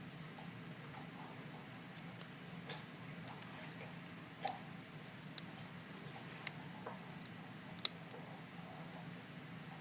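Scattered small metallic clicks and ticks of a lock pick working the pins of a stainless steel padlock under tension, about one a second, the sharpest about eight seconds in, over a faint steady hum.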